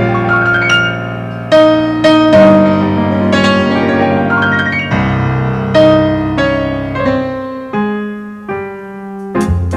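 Instrumental song introduction led by a piano-like keyboard, playing a slow melody over held chords, with shorter repeated notes coming in near the end.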